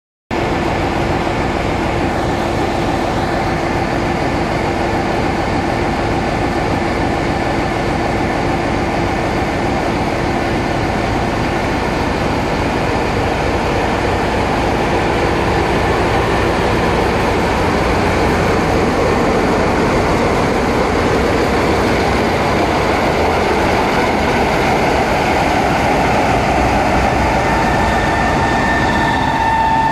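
Class 45 diesel-electric locomotive's Sulzer 12LDA28 twin-bank diesel engine idling steadily while the locomotive stands at the platform.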